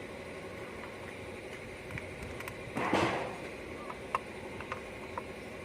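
Small clicks and knocks of ignition coils being unplugged and handled on a switched-off engine, with a brief rushing noise about three seconds in, over a steady low background hum.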